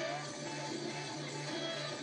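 Music with a steady, evenly pulsing low beat over a dense, hissy accompaniment.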